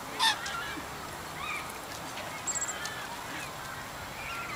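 Domestic geese honking: one short, loud honk just after the start, then scattered fainter calls.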